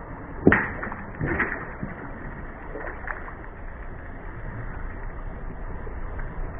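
A car tyre rolling over and crushing objects: a sharp crack about half a second in, then a few softer crunches, over a steady low rumble.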